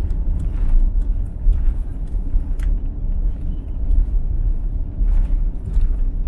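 Steady low rumble inside the cabin of an Airbus A350-900 taxiing on the ground, with a few faint ticks and rattles.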